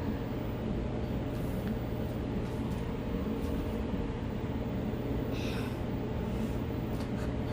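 Washing machine filling with water at the start of a wash cycle: a steady run of water into the drum over a constant low hum.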